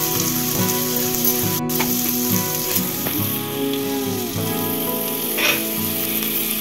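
Chopped onion, garlic, ginger and green chilli sizzling as they fry in hot mustard oil in an aluminium pressure cooker, with background music underneath.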